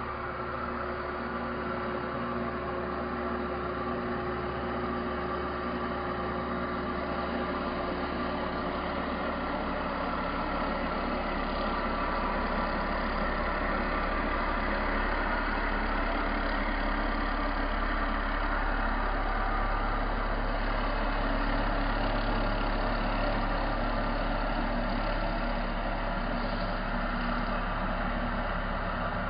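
Horizontal CNC router spindle running and its long milling bit cutting polystyrene foam: a steady machine hum with a hiss of cutting, slightly louder after the first few seconds.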